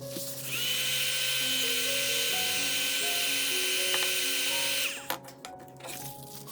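A small electric motor-driven tool runs for about four seconds: it spins up about half a second in, holds a steady whine with a strong hiss, and cuts off near the end. Background music with plucked notes plays throughout.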